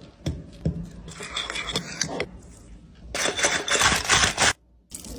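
Clicks and dry scraping of food being handled in a bowl, as dry coating mix is stirred and fried paneer popcorn is tossed. It grows louder about three seconds in, and there is a short gap of near silence near the end.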